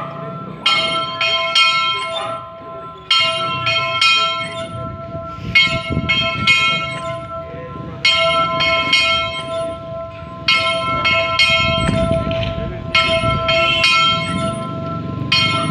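Church bells ringing in quick runs of several strikes, a new run about every two and a half seconds, with the bells' hum ringing on between runs.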